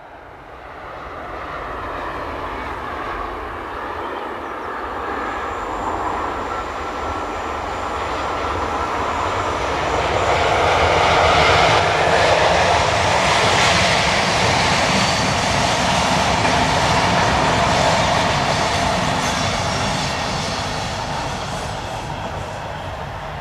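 An electric-hauled passenger train passing: a red SBB electric locomotive with a rake of intercity coaches rolling on the rails. The rolling noise grows as the train approaches, is loudest a little past halfway and fades as it draws away.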